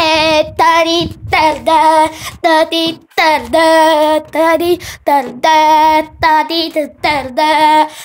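A high voice singing loudly, close by, in a run of short held notes with a wavering pitch and quick breaks between them.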